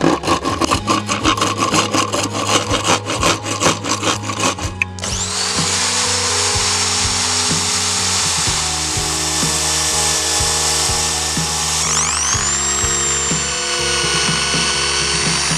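Hand saw cutting wood with quick strokes, then a motor-driven sanding disc running steadily with a high whine as a small piece of wood is pressed against it. About twelve seconds in, an electric hand drill spins up with a rising whine and bores into the wood.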